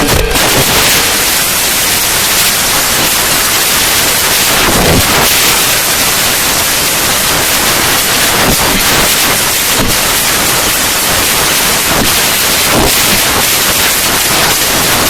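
Loud, steady hiss-like noise with faint scattered crackles.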